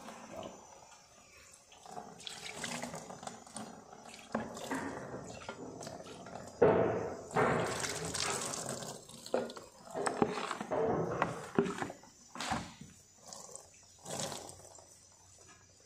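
Silver-cleaning dip liquid poured from a glass jar over a silver ornament, running off and splashing into a tub below in irregular splashes and drips.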